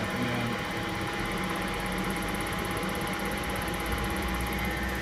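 Spindle of a TRAK DPMSX3 CNC bed mill running steadily at the low end of its high gear range: an even machine hum with a thin steady whine. A low rumble in the hum grows stronger about a second in.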